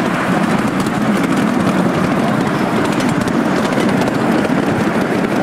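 Miniature steam railway train running along the track, heard from on board: a steady, loud rumble of wheels on the rails together with the working locomotive.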